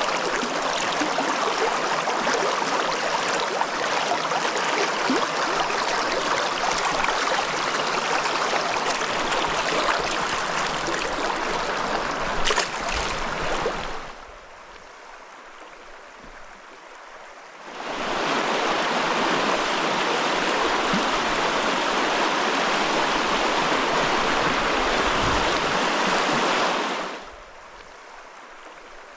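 Rushing stream water, a steady loud rush that drops away abruptly twice to a much quieter background. There is a brief knock just before the first drop.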